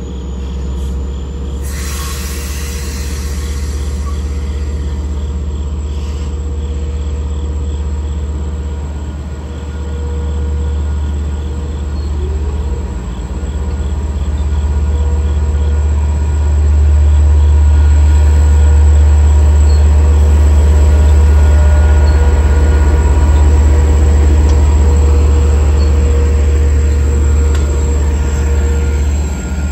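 LIRR DM30AC diesel locomotive running with a steady deep engine drone as the one-car train moves off and passes close, growing louder through the middle as the locomotive comes by. A hiss of air sounds about two seconds in.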